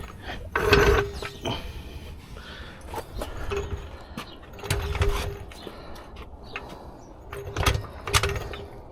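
Hand tools clinking and knocking in irregular bursts during work on the car, loudest about a second in.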